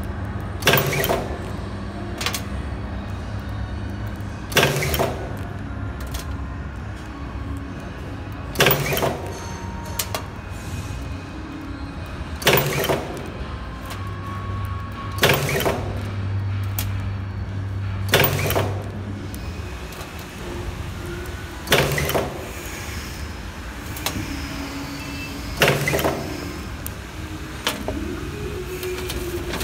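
Cable tie barb inserting machine working through its cycle: a sharp metallic clack about every three to four seconds, eight in all, over a steady low hum from the machine.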